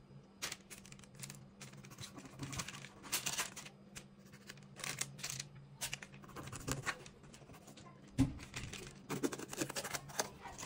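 A small kitchen knife cutting tomatoes, and hands handling vegetables on a paper-towel-covered surface: scattered short scrapes, taps and rustles, with a duller knock about eight seconds in. A low steady hum runs underneath.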